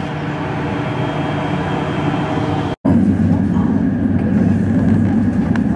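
Interior running noise of a passenger train carriage: a steady hum, then after a split-second dropout about three seconds in, a louder, rougher rumble as the train rolls along.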